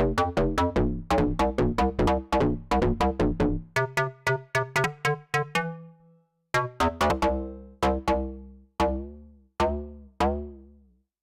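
Arturia MiniFreak synthesizer playing presets: a fast run of plucked, quickly decaying notes over a deep bass, breaking off about six seconds in. Then slower, spaced notes whose pitch bends up and falls back, each ringing out over a low bass, dying away near the end.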